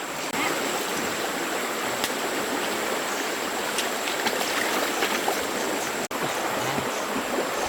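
Stream water flowing steadily, with a thin steady high tone above it; the sound cuts out for an instant about six seconds in.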